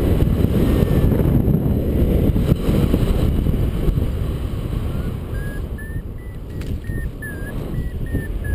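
Wind rushing over the microphone in paraglider flight. From about five seconds in, a variometer beeps in short tones about three a second, its pitch stepping slightly up and down: the vario's climb tone, signalling lift.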